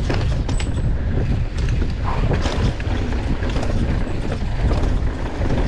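Wind buffeting the action camera's microphone as a downhill mountain bike rolls fast over a rough trail, with tyre noise and a scatter of clicks and rattles from the bike over bumps.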